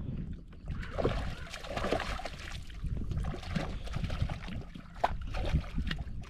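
Outdoor wind and water noise: a steady low rumble of wind on the microphone over a soft, rushing wash like lapping water, with a few short knocks.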